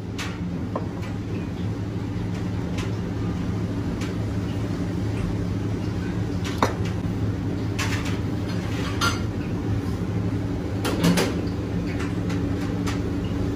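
Knife and fork clinking and scraping against a china plate while cutting into a plated lobster, a dozen or so scattered light clicks, over a steady low background hum.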